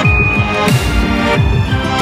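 Electronic background music with a steady beat: a deep bass drum hit about every two-thirds of a second under held synth notes.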